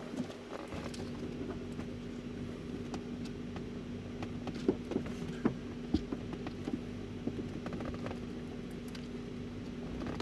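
Scratching, rustling and small clicks of a folded wad of paper being worked in between a sunroof wind-deflector motor and its metal brace, over a steady hum.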